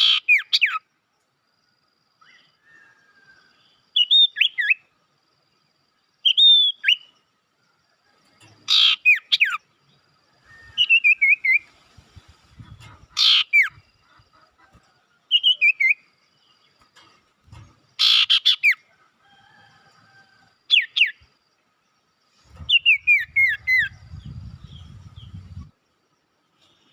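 Lure recording of small songbirds calling in separate bursts every couple of seconds, the sirtu and cipoh (common iora) calls used to draw wild birds in. Clear down-slurred whistles alternate with louder harsh rattling notes, with a low rumble under the calls near the end.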